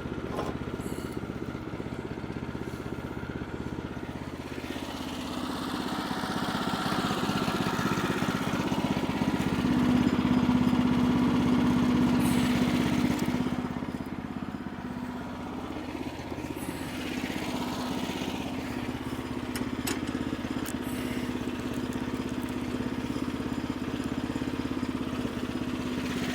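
Gasoline engine of a Woodland Mills portable bandsaw mill running steadily, growing louder for several seconds from about five seconds in, then settling back.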